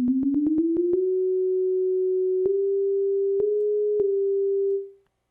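A pure sine-wave tone generated in Logic Pro X: the raw starting sound for a synthesized mosquito buzz. During the first second its pitch is raised in a run of small jumps, each marked by a click. It then holds steady, with a few more clicks and a brief slight rise later on, and fades out near the end.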